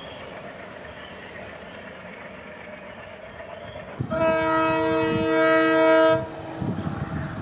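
Low rumble of a passenger train running away on the track. About four seconds in, the air horn of an approaching WDP4D diesel locomotive sounds one steady chord for about two seconds, loud, followed by the locomotive's rumble as it nears.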